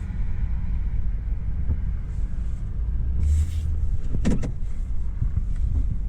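Steady low rumble of a motor vehicle on the move, with a short hiss about three seconds in and a brief knock or rattle about a second later.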